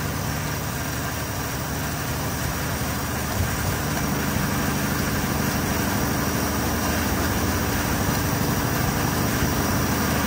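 Carbureted car engine idling steadily at a slightly high idle while it is being tuned, with one brief knock about three seconds in.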